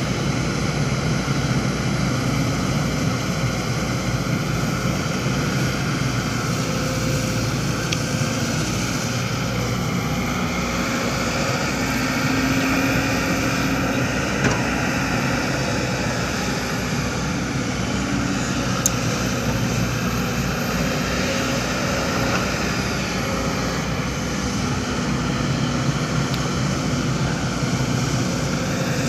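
Heavy diesel construction machinery, such as an excavator or dump truck, running steadily under work, with a couple of faint clicks or knocks near the middle.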